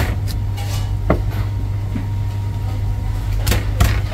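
A Chinese cleaver chopping roast pork on a wooden chopping block: a few sharp chops, one at the start, one about a second in and two in quick succession near the end, over a steady low hum.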